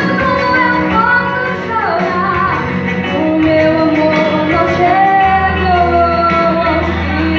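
Female voices of a church vocal group singing a gospel song over backing music, a lead voice on a microphone holding long notes.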